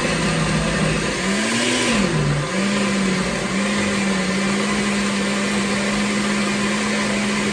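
Countertop blender running at full speed, puréeing tomatillos with onion, garlic, hot pepper, cilantro and water into a green sauce. The motor's pitch wavers up and down for the first couple of seconds as the load shifts, then settles into a steady hum.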